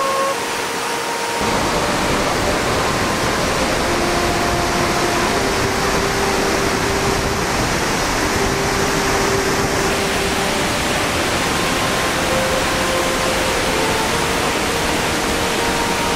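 Waterfall rushing: a loud, steady, even roar of falling water that becomes fuller and deeper a little over a second in.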